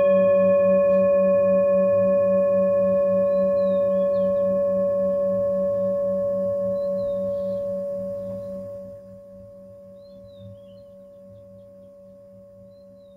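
A deep struck bell tone ringing out and slowly fading, its low hum pulsing steadily; it drops away sharply about nine seconds in, leaving a faint ring.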